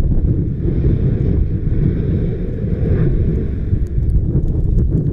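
Wind buffeting the microphone over a steady low rumble from Yasur volcano's crater as lava spatters from the vent in a small strombolian eruption. A few sharp clicks near the end.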